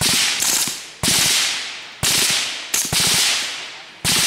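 Suppressed 9mm M4-style carbine firing single shots, about five in a row at roughly one a second. Each sharp report trails off over about a second.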